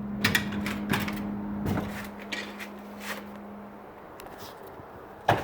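Scattered knocks and bumps of a person clambering about inside a bell tower, over a steady low hum that fades out about four seconds in.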